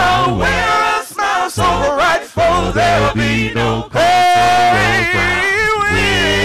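A praise team of several voices singing a gospel song in harmony, a cappella, with low voices holding sustained notes under the melody. About four seconds in, one voice holds a high note for nearly a second.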